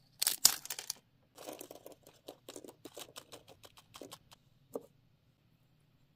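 A tiny foil snack bag torn open in a loud rustle, then a run of short crinkles as its miniature plastic chips are shaken out onto a plate. A single small click follows near the end.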